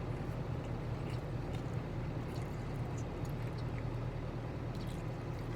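Steady low hum of a parked truck's engine idling, heard from inside the cab, with faint scattered clicks.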